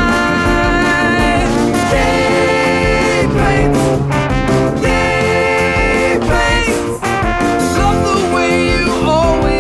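Background music: a swing-style band tune with horns over a steady drum beat.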